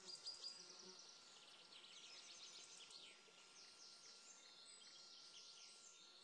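Near silence, with faint high-pitched chirping throughout.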